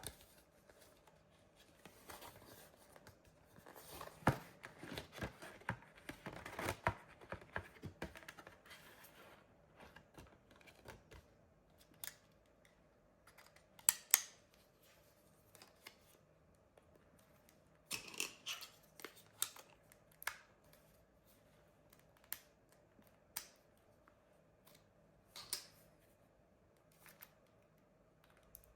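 Quiet handling of a Nokia 6233 mobile phone: a run of small clicks and rustles a few seconds in, then isolated sharp clicks every second or two, over a faint steady hum.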